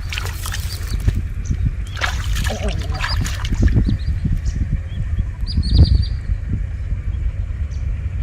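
Water sloshing and splashing in the shallow water of a flooded rice field, over a steady low rumble. A bird chirps a few times about five and a half seconds in.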